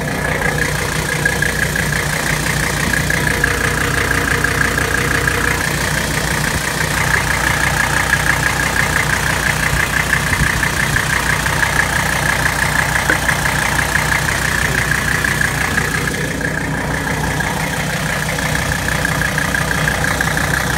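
Mercedes-Benz W123 diesel engine idling steadily, heard close from under the car with the air-conditioning compressor engaged, with a steady high-pitched whine running over the diesel idle.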